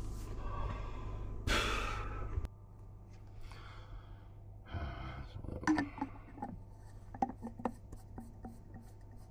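Low machinery hum with a short hiss that cuts off suddenly about two and a half seconds in. It is followed by a run of light clinks and knocks of metal pipe fittings and tools being handled.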